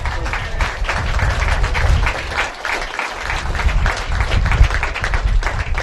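Small crowd applauding: a dense, irregular patter of hand claps that dips briefly near the middle.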